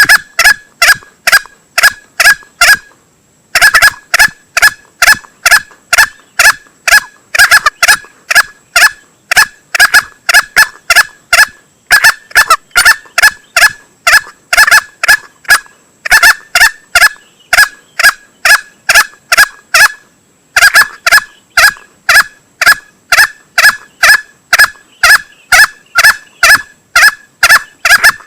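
Male green junglefowl lure call, used to draw in birds for hunting: loud short calls repeated about three times a second in long runs, broken by brief pauses.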